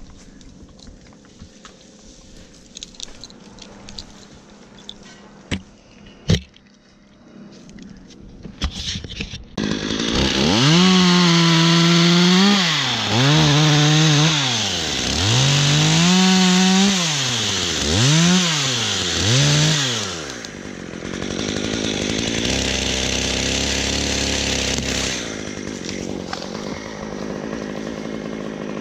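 Top-handle chainsaw engine. After some faint clicks and a sharp knock, it comes in loud about ten seconds in and is revved up and down about five times. It then settles into a lower, steadier run.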